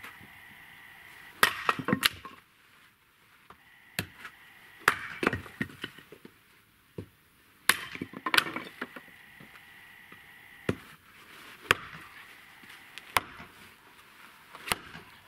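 Axe chopping and splitting firewood: a string of sharp blows a second or two apart, some followed by cracking and splintering of the wood.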